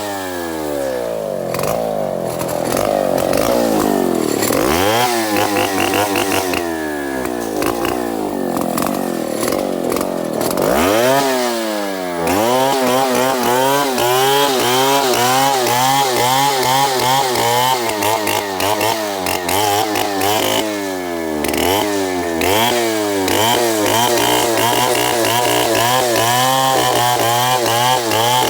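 Chainsaw running at high revs while cutting timber into boards. The engine note wavers quickly under load, and several times the revs sag and then climb back.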